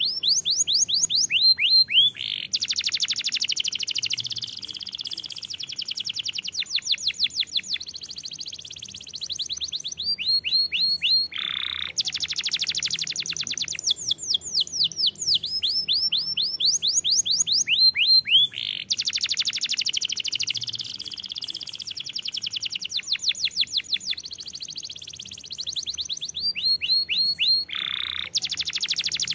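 Domestic canary singing a long, unbroken song. Runs of quick whistled notes sweep downward and alternate with long, dense rolling trills. Twice a buzzy roll slides steeply down in pitch, and the sequence of phrases repeats.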